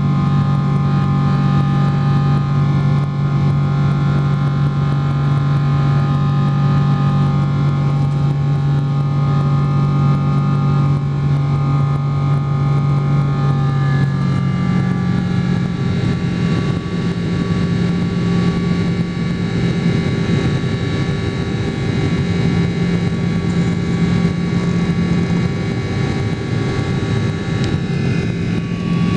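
Boeing 777 cabin noise during the climb: a steady jet-engine drone with rushing air, heard from inside the cabin. About halfway through, the engine tones shift to a new pitch.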